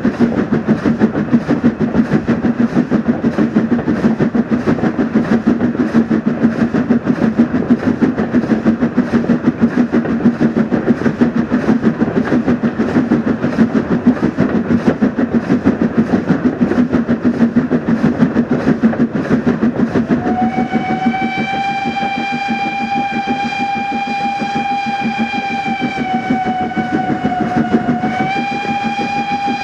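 Steam locomotive running with a rapid, even beat. From about twenty seconds in, a long single-note steam whistle sounds; it sags in pitch briefly and rises again near the end.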